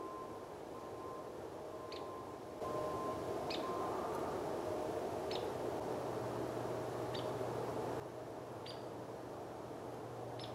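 A bird giving a short, high chirp about every second and a half to two seconds, over steady background hiss.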